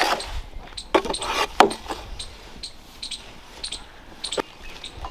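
Metal utensils clinking and scraping against a cooking pan: a series of short, irregular clicks and knocks.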